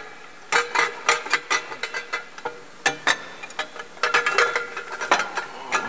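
Metal exhaust crossover pipe clanking against the underbody and fittings as it is manoeuvred and hung up under the vehicle: a dozen or so irregular sharp metallic knocks, each ringing briefly, some in quick clusters.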